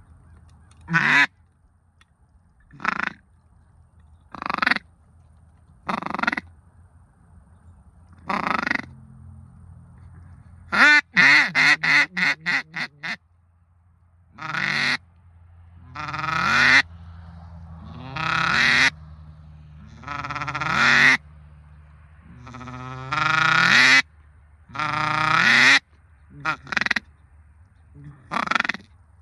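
Duck call blown in loud mallard-style quacks, one every second or two, with a fast run of short quacks about eleven seconds in and longer, falling quacks later.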